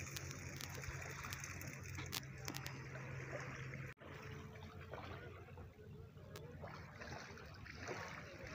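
Small waves lapping and trickling against the rocks at the river's edge, with scattered small splashes. A steady low hum runs under it and stops abruptly about four seconds in.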